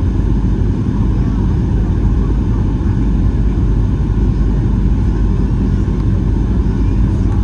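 Steady low rumble of a Boeing 737-800's CFM56-7B turbofan engines and rushing air, heard inside the cabin during the descent on final approach.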